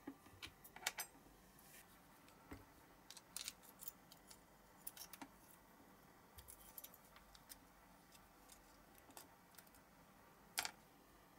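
Faint scattered clicks and light scrapes of a metal hook tool and small parts of a die-cast Matchbox Jeep model being handled, with a sharper click about a second in and another near the end.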